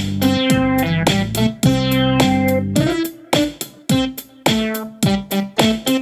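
Instrumental background music: a run of quick notes, each fading after it starts, over held bass notes, thinning out around the middle before picking up again.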